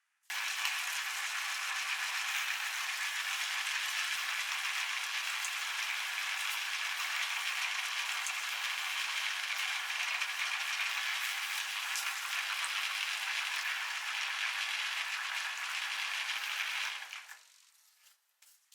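Meat grinder running steadily as it grinds tomatoes, a continuous rattling mechanical noise that starts about half a second in and stops about a second before the end.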